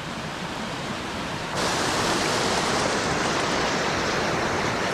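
Fast-flowing river rushing over rocks, a steady rush that gets louder and brighter about a second and a half in.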